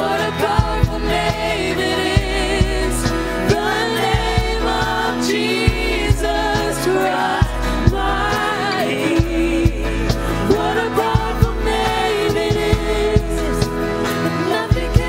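Church worship band playing a gospel-style song: singing with vibrato over sustained bass chords that change every couple of seconds, with regular drum hits.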